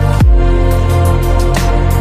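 Electronic background music with sustained synth chords and a deep kick drum.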